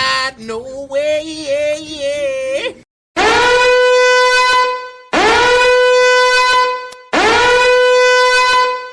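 A wavering, warbling pitched sound for about three seconds, then three long blasts on a horn, each held steady at the same pitch for about two seconds with short gaps between, played as meme sound effects.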